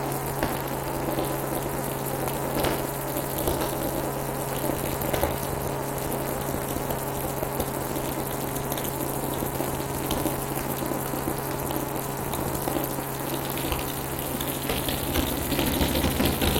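Helicopter in flight heard from inside the cabin: a steady hum under a constant rushing noise.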